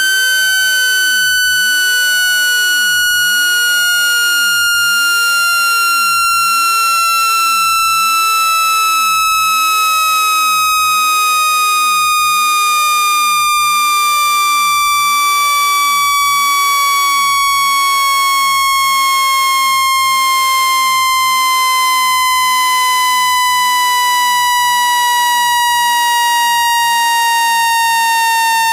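Synthetic speaker-cleaning tone: a loud, buzzy electronic tone that slides slowly and evenly down in pitch. It is a frequency sweep meant to vibrate water out of a phone speaker.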